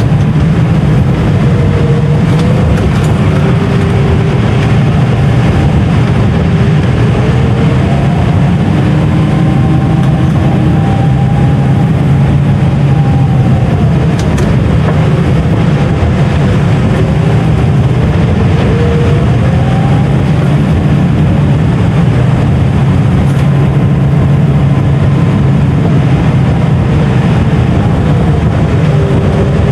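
Tractor engine running steadily under load while pulling a 5 m³ tanker up steep gravel tracks, with a faint whine that wavers up and down in pitch.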